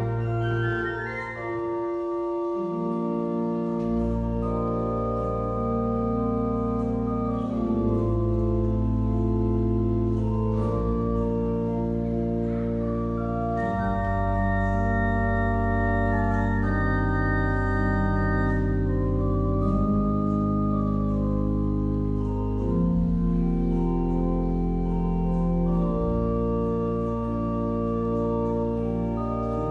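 Church pipe organ playing held chords over deep pedal notes, the harmony moving every second or two.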